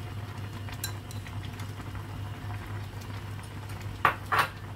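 Noodle soup simmering in a stone-coated pot while wooden chopsticks stir it, with faint scattered clinks, then two sharp knocks against the pot near the end.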